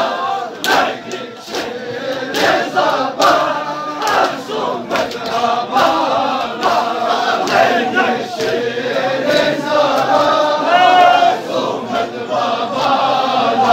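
Crowd of men chanting a Balti noha (mourning lament) in unison, with rhythmic chest-beating (matam) strikes about once a second that fade out after the first few seconds.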